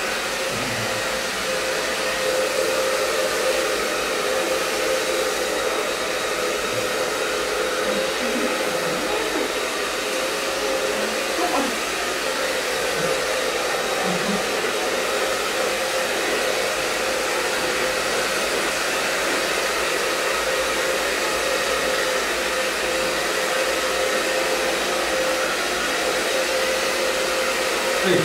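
Handheld electric hair dryer running steadily, a constant rush of air with a steady hum.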